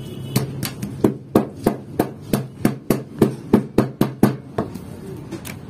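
A baker working flatbread dough by hand: a rapid run of about a dozen sharp slaps, about three a second, that stops about a second before the end.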